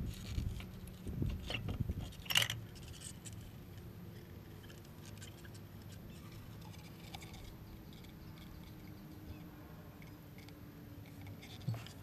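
Metal scooter transmission parts being handled: a few clunks, then a sharp metallic clink about two seconds in, followed by light clicks and scraping as the clutch and pulley assembly is lifted out, and a knock near the end as a part is set down.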